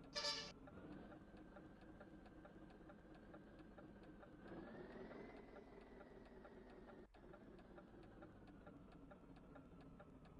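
A truck's engine running with a steady whine that rises in pitch about halfway through, then settles. Faint regular ticking runs throughout. A short, loud horn toot sounds right at the start.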